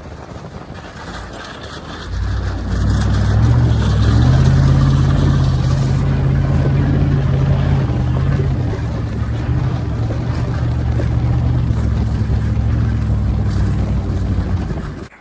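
Vehicle engine running steadily at speed over a rushing noise, growing louder about two seconds in and cutting off suddenly at the end.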